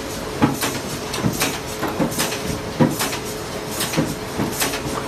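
Irregular knocks and clunks from long loaded shafts and tape cores being handled at a tape cutting machine, roughly one to two a second. A steady machine hum runs underneath.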